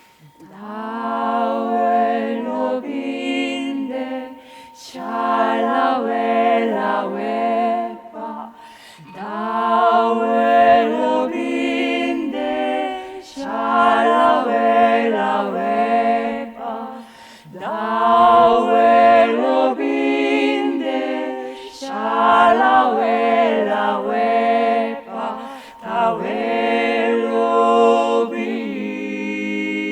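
A small vocal ensemble singing a lullaby a cappella, in slow phrases of about four seconds with short pauses between them. Near the end, a singing bowl's steady ring comes in under the voices.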